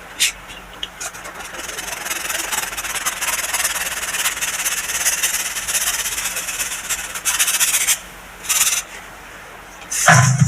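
Packed baking soda being crushed and rubbed: a soft, continuous gritty scraping for several seconds after a few light clicks, then two short bursts of the same near the end.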